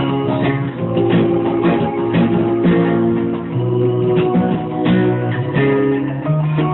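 Guitar music: plucked and strummed chords, each held briefly before the next, changing every second or so.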